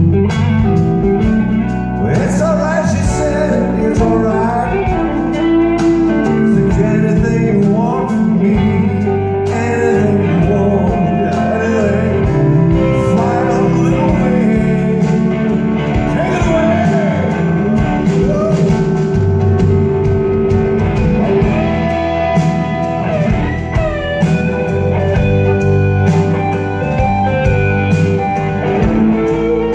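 Live band playing a blues-rock number: two electric guitars over a drum kit, with lead lines bending in pitch.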